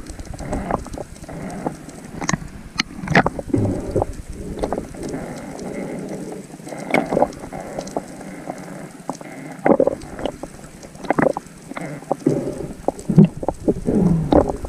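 Underwater sound picked up by a camera in its waterproof housing: irregular clicks, knocks and crackles over a low rush of moving water that comes and goes.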